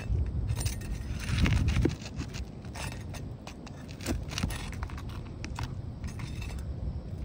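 Flat pry bar scraping and clicking against asphalt shingles as the sealed tabs are pried up and roofing nails worked out, with a louder stretch of scraping about a second and a half in.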